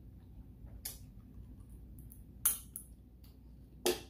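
Close-miked sounds of eating by hand: three short, sharp clicks about a second and a half apart as meat is chewed and pulled apart with the fingers. The second and third clicks are the loudest.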